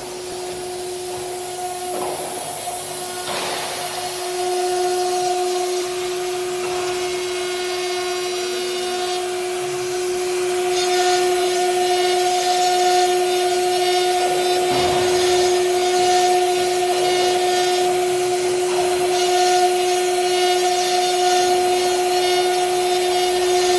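A CNC router spindle runs with a steady whine while its pointed engraving bit cuts lettering into MDF. The cutting noise grows louder about ten seconds in.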